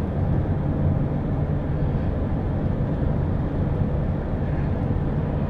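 Steady engine hum and tyre noise of a car driving on the highway, heard from inside the cabin.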